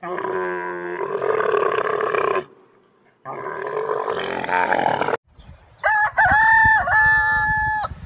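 Roosters crowing: three separate long crows in a row, the last one higher-pitched and clearer, dipping in pitch twice.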